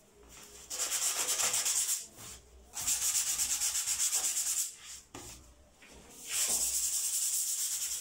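Sandpaper rubbed over the MDF speaker cabinet in quick back-and-forth strokes, in three spells with short pauses between: sanding the wood ahead of its polish and lacquer finish.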